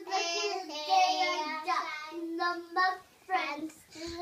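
A young girl singing, holding long notes in short phrases with brief pauses between them.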